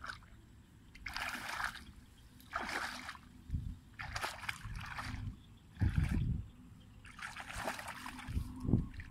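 Legs wading through shallow muddy paddy water and tall grass: a splash and swish with each of about five slow steps.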